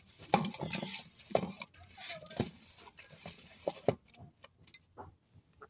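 Green chillies and salt being crushed by hand in a stainless steel bowl: irregular scraping and knocking of the hand against the steel, with sharp clicks, thinning out after about four seconds.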